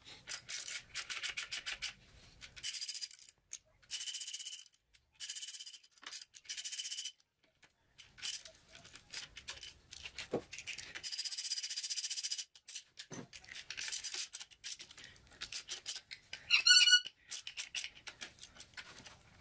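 Hand ratchet clicking in repeated short bursts of quick strokes as the valve body bolts on a TH400 transmission are snugged down one by one, with a brief squeak near the end.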